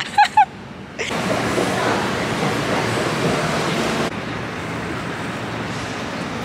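Rushing noise of a subway station heard from a descending escalator, which cuts off suddenly after about four seconds to the steadier, quieter hum of busy city street traffic.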